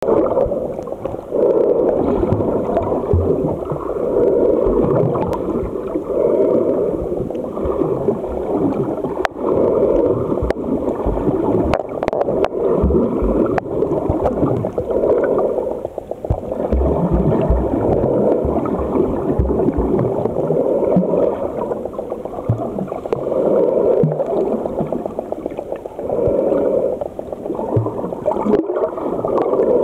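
Muffled underwater water noise picked up by a submerged camera: a low rushing gurgle that swells and fades every two to three seconds, with some dull low knocks in the middle.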